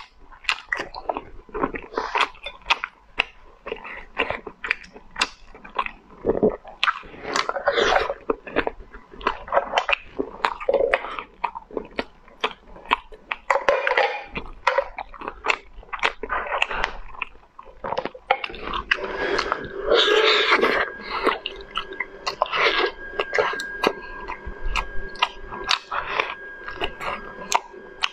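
Close-miked eating of braised snails: shells clicking against each other and against the fingers, the snail meat sucked out of the shells, and chewing.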